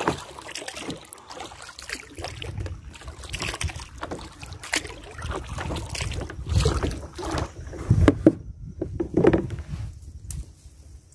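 Kayak paddle dipping and splashing in river water in irregular strokes, with scattered sharp knocks.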